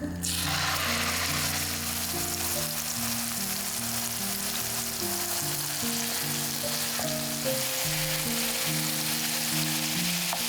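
Food going into a hot pan and frying: a sizzle that starts abruptly and then keeps up steadily, over background music.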